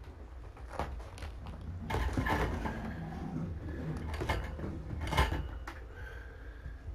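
A series of light knocks and clatters, like things being handled and set down, with the loudest knock about five seconds in.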